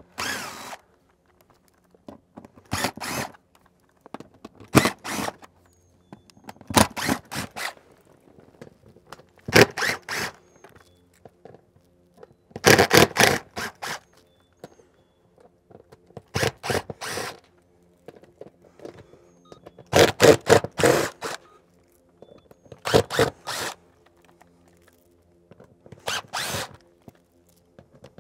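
DeWalt 20V cordless impact driver backing screws out of a metal pipe boot's flange on a metal roof panel, one screw at a time. About ten short bursts, each under a second and two to three seconds apart.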